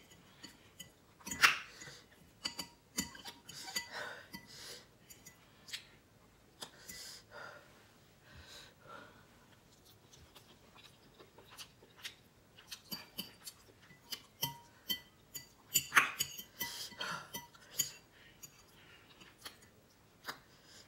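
Metal fork clinking and scraping against a glass bowl while instant noodles are eaten: scattered sharp taps throughout, with a few louder mouth sounds of eating about a second and a half in, around four seconds, and again around sixteen seconds.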